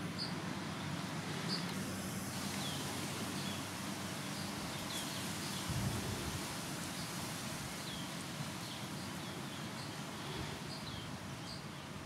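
Garden birds chirping in short, high notes, one or two a second, over a steady outdoor background hiss, with a brief low bump about halfway through.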